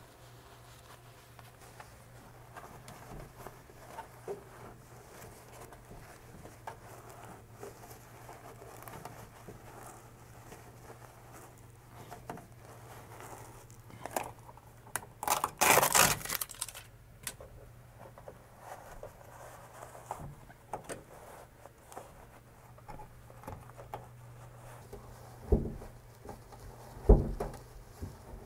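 Thinsulate insulation rustling and crinkling as it is handled and pressed into the van's bare metal wall. A little past the middle comes a loud rip of about two seconds, like duct tape pulled off the roll, and near the end there are two dull thumps.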